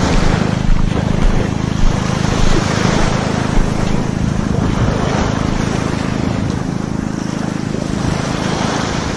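Wind noise on the microphone over small waves washing onto a sandy shore, the wash swelling and fading every few seconds.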